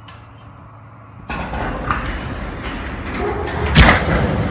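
Steel water tower toppling and crashing to the ground: a sudden loud crash about a second in, then a run of heavy impacts as the tank and legs hit and settle, the loudest near the end.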